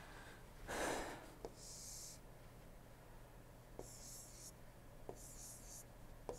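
Faint stylus strokes on a drawing tablet: several short, scratchy strokes, each starting with a light tap, as circles are drawn. A single breath about a second in.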